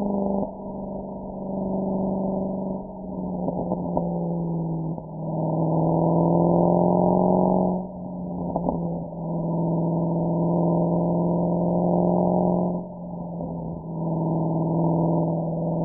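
Mercedes-AMG SL63's V8 exhaust droning at a nearly steady pitch while cruising, swelling louder on throttle three times (about five, nine and fourteen seconds in) and easing back between.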